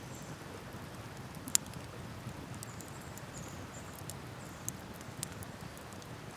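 Wood fire crackling, with scattered sharp pops (one loud pop about a second and a half in), over the steady rush of a river.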